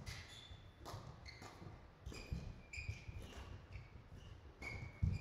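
A badminton rally in a sports hall: sharp racket strikes on the shuttlecock at irregular intervals, with short high squeaks of shoes on the court floor and footfalls. A heavy low thud just before the end is the loudest sound.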